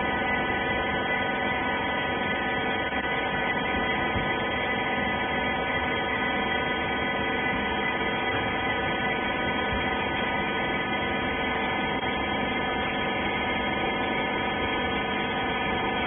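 Rag baler machinery running with a steady hum and several constant whining tones, unchanging throughout.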